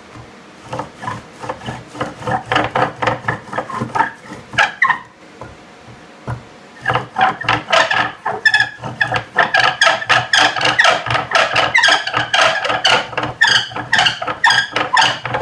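Bow drill making fire by friction: the wooden spindle whirls back and forth in the hearth board with each stroke of the bow, giving a fast rhythmic squeaking rub. The strokes pause for a couple of seconds about five seconds in, then start again.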